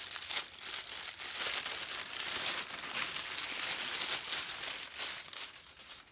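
Packaging crinkling and rustling continuously as a tripod stand is unwrapped and handled, easing off near the end.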